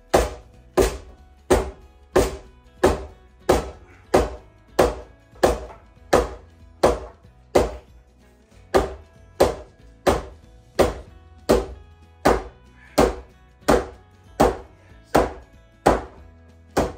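A hammer striking a wooden upright again and again, about one and a half blows a second, driving the slightly overlong post tight up under the beam.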